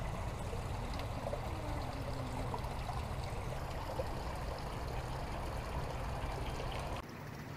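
Steady trickle of running water, an even rushing hiss with no speech over it, which drops quieter near the end.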